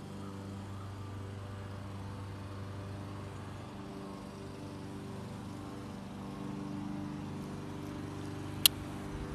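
Steady low hum made of several even tones, like a motor or engine running, with one short sharp click about eight and a half seconds in.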